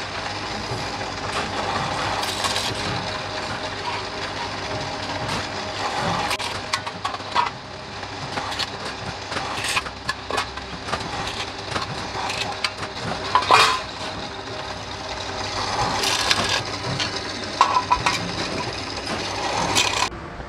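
Pillar drill press running and drilling holes through aluminium ladder profiles: a steady motor hum under frequent metallic clinks and clatter as the aluminium pieces are positioned and drilled. A sharp metallic clank about thirteen and a half seconds in is the loudest sound.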